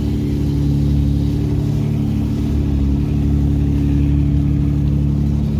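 Off-road vehicle's engine running steadily at low speed, heard from inside the cab as it crawls along a trail, a low even drone.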